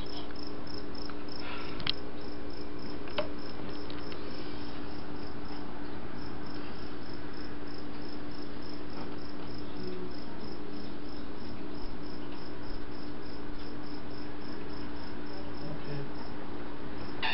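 Crickets chirping in a steady, even rhythm, about two to three chirps a second, over a steady low hum.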